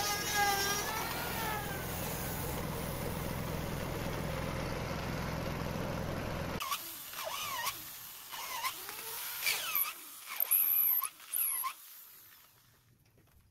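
Steady outdoor background noise with a wavering pitched tone in the first second or so, which cuts off suddenly about six and a half seconds in. A series of short animal-like calls follows, each bending up and down in pitch, with a few high chirps.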